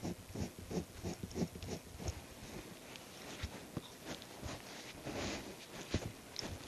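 Faint handling noise as a cloth buffing wheel is threaded onto a metal mandrel: a quick run of small rustles and taps, a longer rustle about five seconds in, and one sharp tick about six seconds in.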